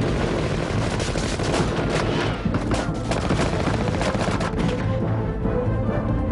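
Rapid gunfire, many shots in quick irregular succession, over a dramatic film score. The shooting stops a little before the end, leaving only the music.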